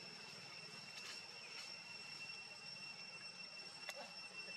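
Faint outdoor background: a steady high-pitched whine over a low rumble, with a few light clicks, the sharpest about four seconds in.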